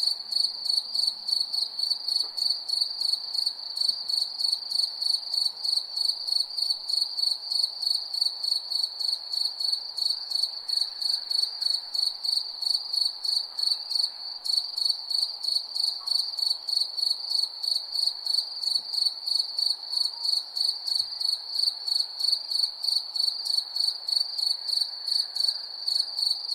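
Cricket chirping steadily on one high pitch, an even run of about three chirps a second, over a faint background hiss.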